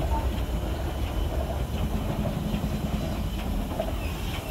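Ohio steam locomotive crane moving slowly along the track under its own power: a steady low rumble with light metallic clanks from its running gear on the rails.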